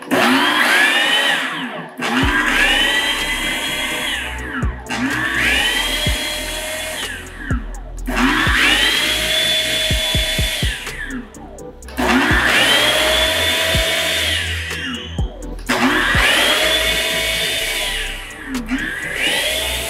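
Food processor pulsed about seven times while chopping fresh basil with olive oil into a dressing: on each press the motor spins up to a high whine, runs for two to three seconds, then winds down.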